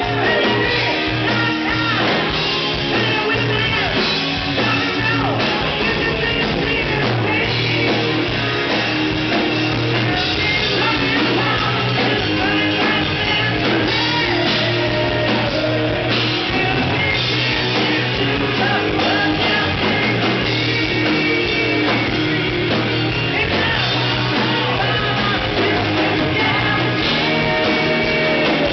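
Hard rock band playing live: a singer's vocals over loud electric guitars and a steady low bass line.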